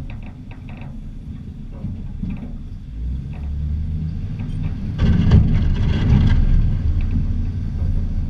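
Snowplow vehicle driving through snow, heard from a hood-mounted camera: a steady low rumble of engine and running gear, with a few light knocks near the start and a louder rushing surge about five seconds in.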